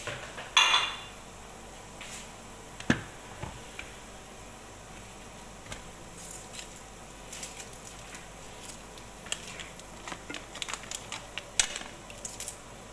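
Dishes and bowls handled on a kitchen counter: a ringing clink about half a second in, a sharp knock about three seconds in, then scattered light clicks and clatters.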